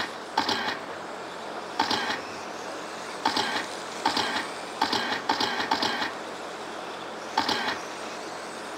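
Electric RC stadium trucks with 13.5-turn brushless motors whining past one after another on a dirt oval: short, even-pitched bursts of motor and gear whine come about once a second as each truck goes by.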